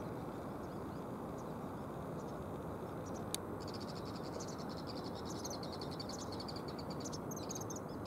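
Common kingfisher calling in a rapid, high-pitched series of piping notes, starting a little under four seconds in and running for about four seconds, over a steady low background noise. A single sharp click comes just before the calls begin.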